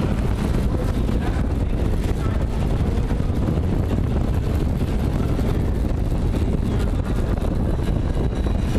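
Steady rush of wind over a bike-mounted camera's microphone at racing speed, mixed with the rolling rumble of a fixed-gear track bike on wooden velodrome boards.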